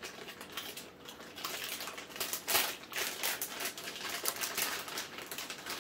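Thin plastic bag crinkling and rustling irregularly as a large graphics card is slid out of it.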